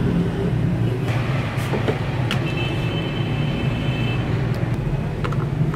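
Steady low background rumble, with a few faint clicks and a faint high tone held for under two seconds near the middle.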